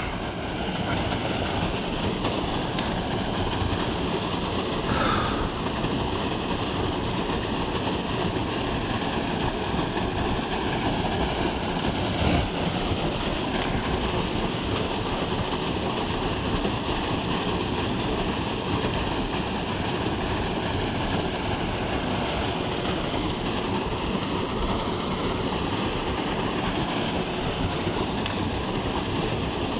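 Small waterfall pouring into a rock pool: a steady, even rush of falling water.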